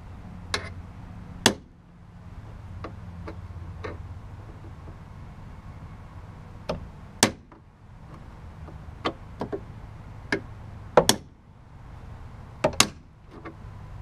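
Small hammer striking a 7/16-inch transfer punch to spot-mark a bolt-hole centre in the aluminium body of a Land Rover Series II, through the existing hole in the galvanized capping. Irregular sharp metallic taps, mostly light, with harder blows about a second and a half in, around seven and eleven seconds in, and near the end.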